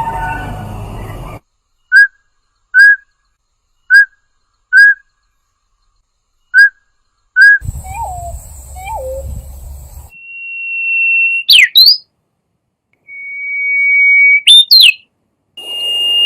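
Calls of several different birds, cut one after another. First come three pairs of short whistled notes, then two low falling notes. After that come long steady whistles, each ending in quick sweeping notes.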